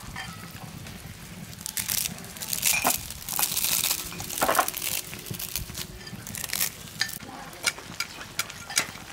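Dry instant noodle cakes crumbled by hand into a pan of boiling, sizzling water, then stirred with a metal spatula. A crackling hiss with bursts of crunching, loudest in the middle, and scattered light clicks near the end.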